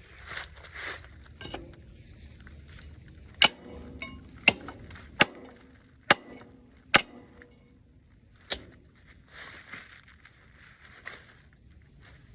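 A big steel bar striking stuck pistons in an engine block, six sharp metallic clanks about a second apart, the strikes light rather than hard. Softer scraping sounds come near the start and again near the end.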